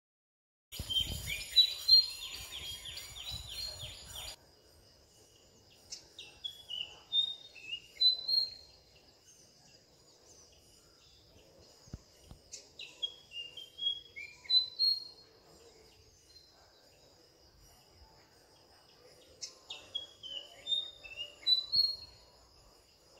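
Fantail flycatcher singing: a loud run of quick whistled notes in the first few seconds, then three separate phrases of clear whistled notes stepping down and back up in pitch, several seconds apart.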